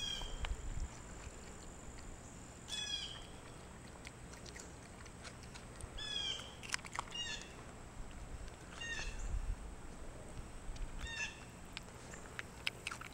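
Birds calling: a short, harsh call with several overtones, repeated about six times at irregular gaps of two to three seconds.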